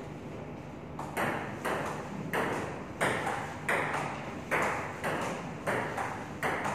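Table tennis rally: the ball clicking off the bats and the table, a hit about every half second after the first second, each with a short ring of room echo.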